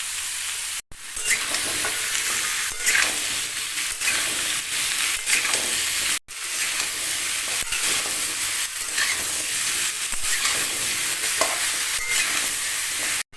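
Cut pumpkin, potato and soaked chickpeas sizzling in hot oil in a kadai while being stirred, with the spatula scraping the pan now and then. The sound cuts out briefly twice.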